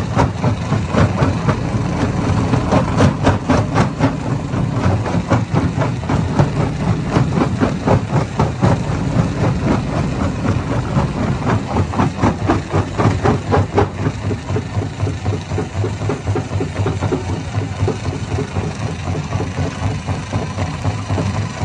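Hammer stone crusher running with a steady heavy drone, stones knocking and cracking rapidly as they are broken inside it; the knocking thins out about two-thirds of the way through.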